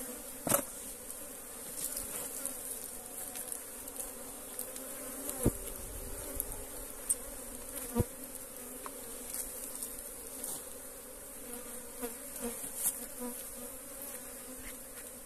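A colony of honeybees buzzing around an opened log hive while the comb is harvested: a steady hum of many bees, with a few short knocks about half a second, five and a half and eight seconds in.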